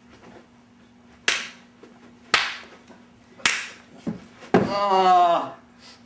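Three sharp slaps about a second apart, then a lighter knock and another slap followed at once by a short yell from a person.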